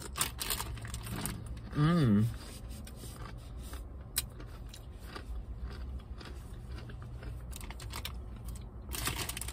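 A person chewing spicy Doritos tortilla chips with bean dip, many small crunches, with a short wavering hummed "mmm" of enjoyment about two seconds in.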